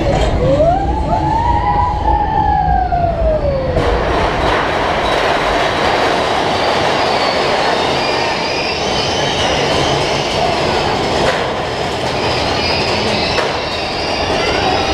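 Big Thunder Mountain Railroad mine-train roller coaster running on its track, heard from a rider's seat: a steady rumble of the train. A long tone rises and falls over the first four seconds, and faint high wheel squeals come in the second half.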